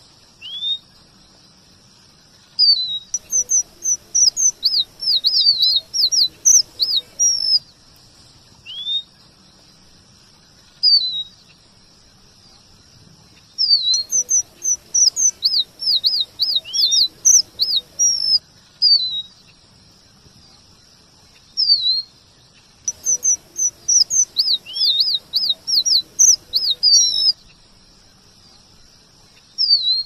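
Red avadavat (strawberry finch) singing: three bouts of high, sweet whistled notes that sweep up and down, each lasting four to five seconds, with single call notes between the bouts.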